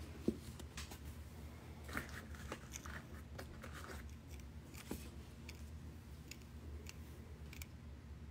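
Faint, irregular clicks and rustles of small tumbled sugilite stones and plastic zip bags being handled on a table, with a low steady hum underneath.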